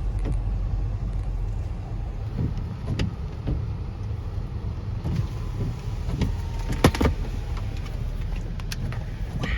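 Car cabin noise while driving: a steady low rumble of tyres and engine, with a few sharp clicks, one about three seconds in and two close together near seven seconds.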